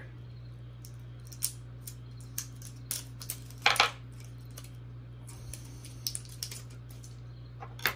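Plastic battery packaging being cut and pulled open with scissors: scattered crinkles and clicks, over a steady low hum.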